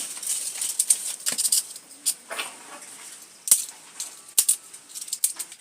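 Irregular crackles, rustles and sharp snaps of dry banana leaves and sticks being handled as a firewood cooking fire is laid.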